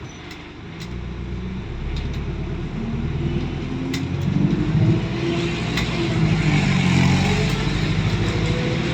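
Diesel engine of an ADL Enviro400 double-decker bus accelerating, its note growing louder and climbing in pitch over several seconds.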